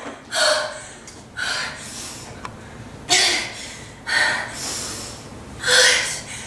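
A woman gasping and panting, about five sharp breathy gasps roughly a second apart, in panic.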